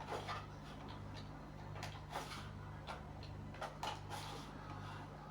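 Faint, irregular clicks and light scrapes of a soldering iron tip worked against an LED light's aluminium board, which will not take the solder. A steady low electrical hum runs underneath.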